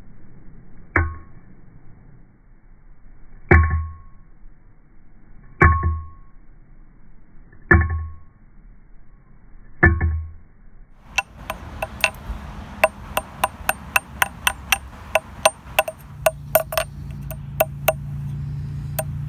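Ball-peen hammer striking heavy fence wire on an old axe head used as an anvil: five single blows about two seconds apart, each with a short metallic ring. About eleven seconds in, fast ticking percussion music starts, with a low held note near the end.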